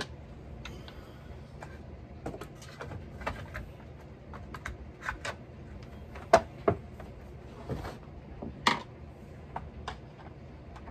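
Light plastic clicks and knocks as the air-filter and top-cover parts of a Husqvarna chainsaw are handled and fitted, with a few sharper knocks from about six seconds in.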